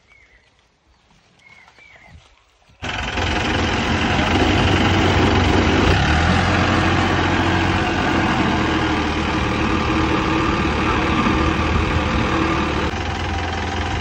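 Diesel engines of a farm tractor and a small road roller running steadily during a tow. They come in suddenly about three seconds in, after a faint, near-quiet opening.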